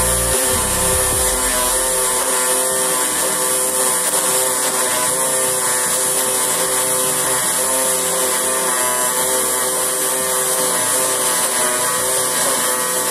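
Pulse-MIG welding arc of a Cebora Pocket Pulse 180 inverter welder running on aluminium: a steady, even buzz with a high hiss.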